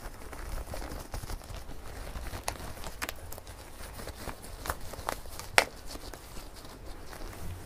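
Thin disposable gloves being pulled onto hands close to the microphone: soft rubbery rustling with scattered small clicks and snaps. The loudest, sharpest snap comes a little past halfway.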